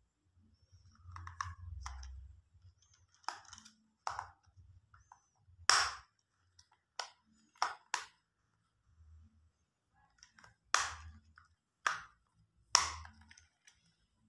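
Irregular sharp plastic clicks and snaps, about nine of them, with bubble-wrap crinkling, as a plastic folding LED emergency lamp is handled and unwrapped.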